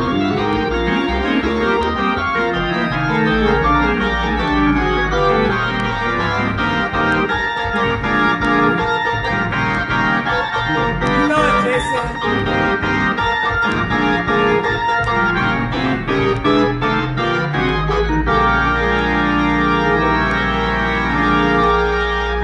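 Organ played on an electronic keyboard: full sustained chords over long held bass notes, steady in level throughout.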